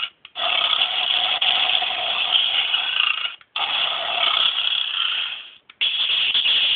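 Electronic sound effects from a Gokaiger DX toy's small built-in speaker: a harsh, noisy, tinny effect played three times in a row, each cut off by a brief silence.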